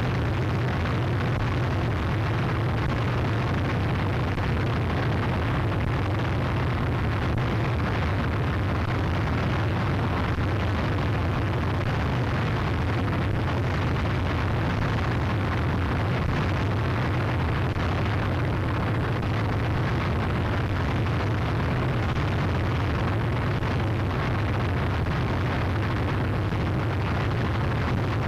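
Harsh noise wall from a cassette: a dense, unchanging wall of distorted noise with a heavy low rumble, at one steady level throughout.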